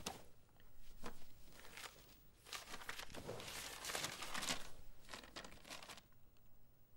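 Faint rustling and crinkling of paper as a document is taken out and unfolded, with a couple of light taps in the first two seconds.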